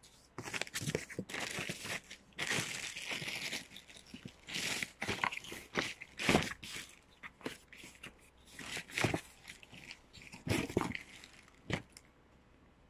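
Cardboard carton and plastic bag rustling and crinkling as an ink bottle is unpacked by hand, in irregular bursts with a few sharp knocks of the bottle and box.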